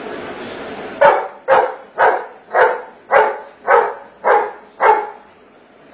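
Golden retriever barking eight times, evenly spaced at about two barks a second, counting out its answer to "seven plus one".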